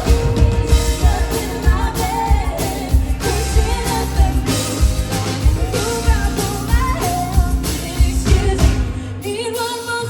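Live band playing a pop-rock song with a lead vocalist singing over a steady drum beat; the drums and bass drop out briefly near the end before coming back in.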